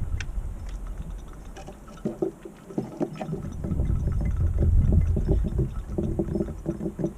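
Strong wind buffeting the microphone with a low rumble that swells and fades, heaviest about four to five seconds in. Over it, rapid light tapping of small birds pecking at seed.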